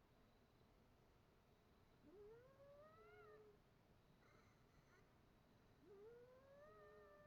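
Faint cat yowling: two long drawn-out calls about four seconds apart, each rising in pitch and then holding steady.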